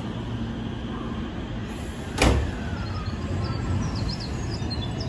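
JR West 207 series electric commuter train standing at the platform with a steady low hum, then a single loud thud about two seconds in as its sliding doors shut.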